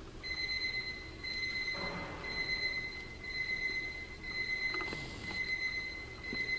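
A steady high-pitched electronic drone tone that swells and dips about once a second. It starts a moment in and holds one pitch throughout.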